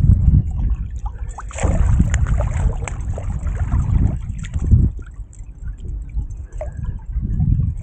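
Wind buffeting the microphone in uneven gusts, with scattered crackles; it is loudest in the first half and dies down near the middle.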